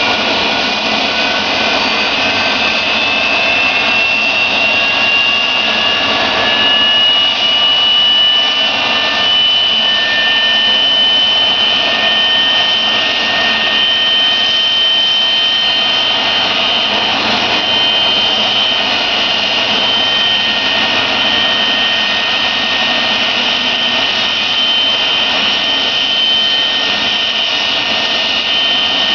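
Boeing 737-200's Pratt & Whitney JT8D jet engines running with a loud whine and rush. The whine rises in pitch over the first ten seconds or so, then holds steady as the engines spool up after start.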